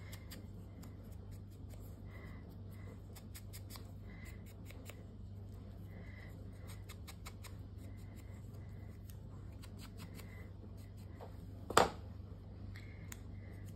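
Paper and small washi tape pieces being handled on a tabletop: faint rustles and light clicks, with one sharp snap or snip near the end. A steady low hum runs underneath.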